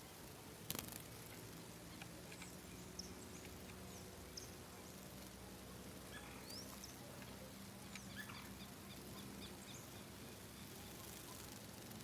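Faint wild birds chirping, with short high calls, a few quick rising notes and a brief run of rapid notes past the middle. A sharp knock comes about a second in, over a faint steady low hum.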